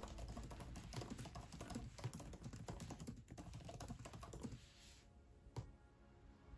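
Fast typing on the built-in scissor-switch keyboard of a 13-inch M1 MacBook Pro: a quick, dense run of key clicks that stops about four and a half seconds in, followed by one more single click.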